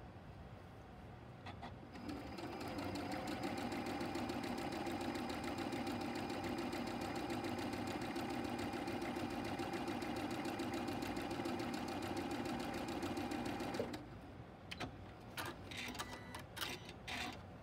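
Sewing machine stitching fabric through foundation paper at a steady speed, starting about two seconds in and stopping abruptly about four seconds before the end. A few short clicks and paper rustles follow as the block is handled.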